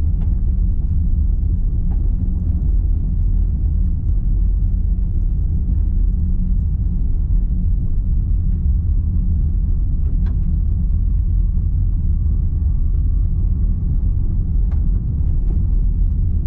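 2025 Land Rover Defender 110's 5.0-litre supercharged V8 running at a steady, even pitch: a low, constant exhaust rumble with no revving.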